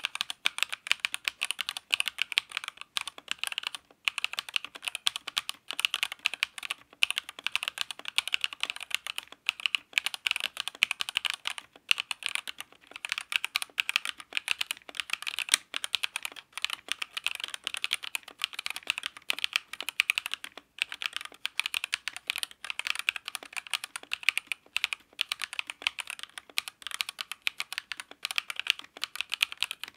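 Redragon K631 PRO SE mechanical keyboard being typed on at a fast, steady pace: a dense run of crisp key clacks, broken by a few brief pauses.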